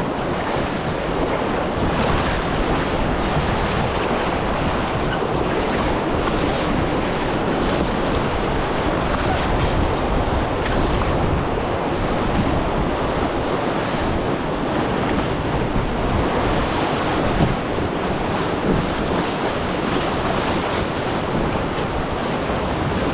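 Steady rushing of whitewater around the raft, with wind buffeting the microphone.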